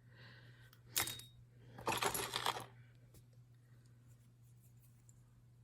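Small metal jewelry pieces clinking: a sharp click about a second in, then a brief jingling clatter around two seconds in as earrings are handled and set down. A steady low hum runs underneath.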